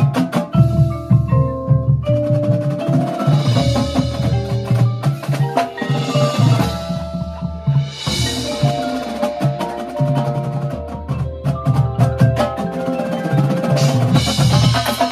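Drum corps front ensemble playing mallet percussion, marimbas and vibraphones, in fast runs of ringing notes, with deep low notes underneath and sharp percussion hits.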